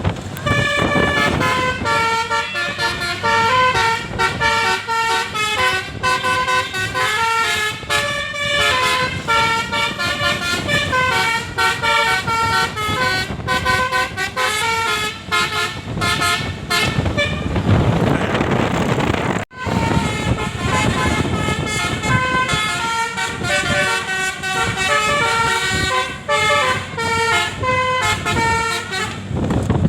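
Bus telolet multi-tone horn playing a sholawat melody as a quick run of stepped horn notes, breaking off briefly about two-thirds of the way through and then starting the tune again.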